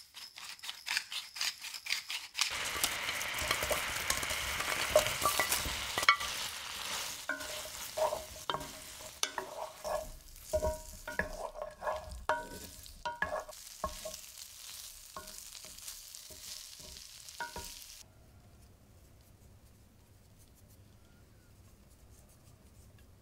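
Garlic butter sauce sizzling in a skillet, with a run of quick clicks at the start. A wooden spatula then stirs and knocks against the pan as chicken bites are tossed in the sauce. The cooking sounds stop about three-quarters of the way through.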